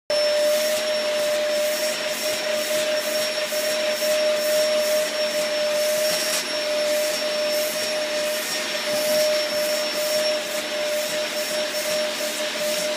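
Vacuum cleaner running with a steady whine, its nozzle drawn through a husky's shedding coat, with a faint pulsing hiss about three times a second.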